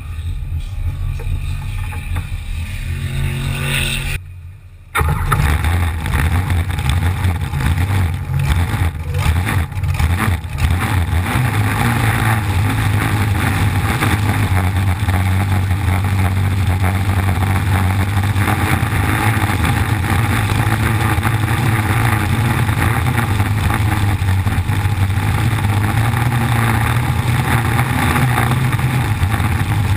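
Flat-bottom V-drive race boat's engine running at low speed, then cutting out briefly about four seconds in. It comes back loud and steady as the boat runs fast, with rushing water mixed in.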